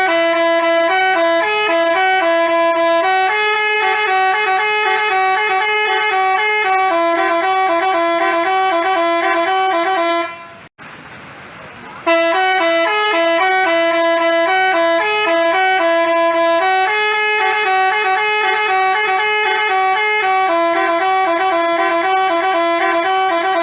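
Multi-tone 'basuri' telolet bus horn playing a melody of stepped horn notes. The tune runs about ten seconds, cuts off abruptly, and after a short pause plays the same tune again.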